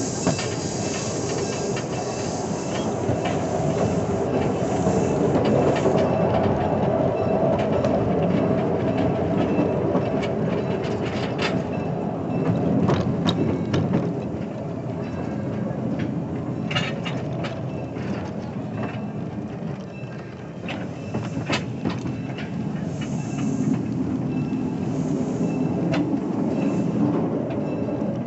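Small train rolling along narrow-gauge track: a steady rumble of wheels on rail with irregular clacks over the rail joints. A high hiss fades out over the first few seconds.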